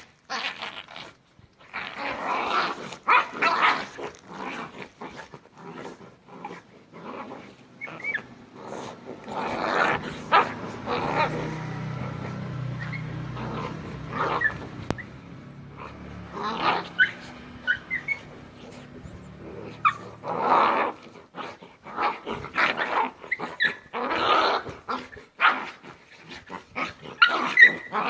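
Two small dogs fighting, growling and snarling in irregular bursts with short yelps and barks; a low, steadier growl runs for a few seconds in the middle.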